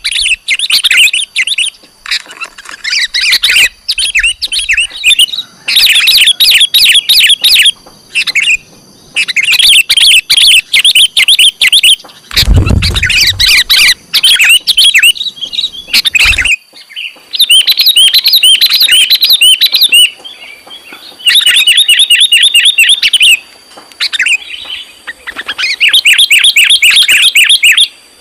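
Sooty-headed bulbul (kutilang) calling in repeated bursts of rapid, high chirps, each burst a second or two long with short gaps between, the lure call sought by bird trappers. A low thud and rumble breaks in around the middle.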